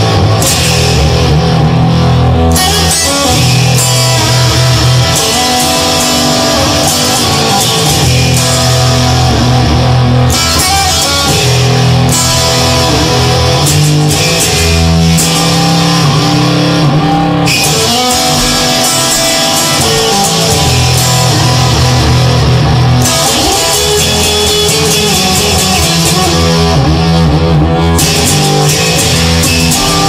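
Instrumental rock music led by electric guitar, with no singing; the bright top end drops away briefly several times.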